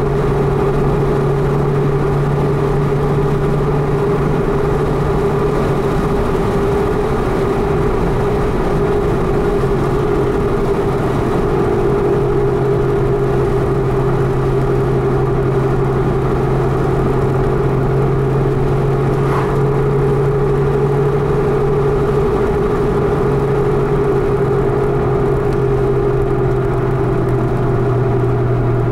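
A car's engine drones steadily at cruising speed over tyre and road noise, heard from inside the cabin. The pitch dips slightly a couple of times as the speed eases.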